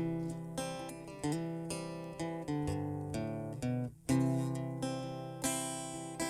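Acoustic guitar strumming chords roughly once a second, each chord left to ring and fade, as the instrumental lead-in to a country song.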